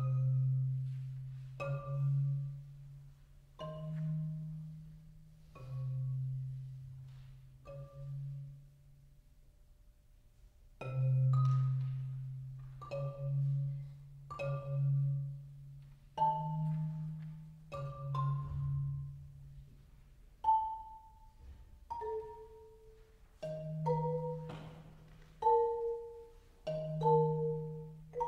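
Solo marimba played with mallets: single struck notes about every two seconds, low bass bars ringing on beneath higher notes. After a pause of about two seconds in the middle, the notes come quicker, often two at once.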